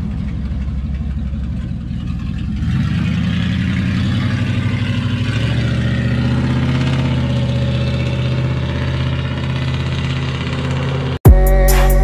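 Lifted Dodge Ram pickup's engine idling, then revving up about three seconds in as the truck pulls away and drives off, its engine note holding on. Near the end it cuts off abruptly for a loud hit and outro music.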